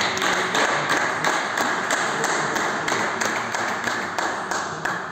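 Spectators applauding a won point, with sharp hand claps from one person close by. The applause eases off near the end.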